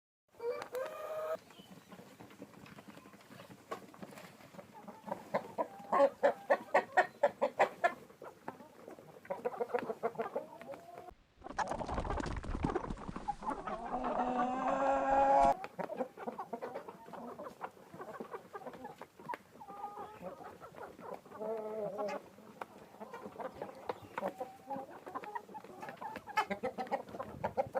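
A flock of chickens clucking, with a quick run of sharp, loud clucks a few seconds in. In the middle a louder stretch of cackling and calls breaks in for about four seconds before the softer clucking resumes.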